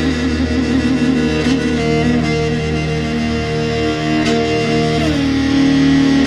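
Instrumental music with long held notes over sustained low tones, without singing.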